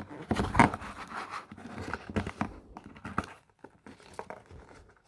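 Paper and cardboard rustling and crinkling, with scattered small knocks, as folded instruction sheets are pulled out of a toy's cardboard box. The handling is busiest in the first half and thins out after about two and a half seconds.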